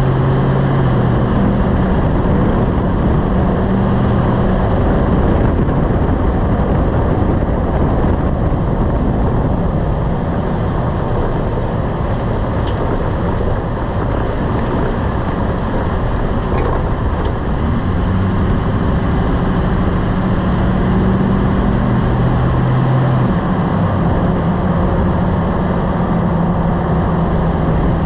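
Lifted pickup truck on the move: loud steady road, tyre and wind noise with an engine hum whose pitch shifts and fades for a while in the middle, and a couple of faint clicks.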